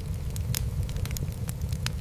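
Wood fire in a fireplace crackling: irregular sharp pops and snaps, several in quick succession, over a steady low rumble of the flames.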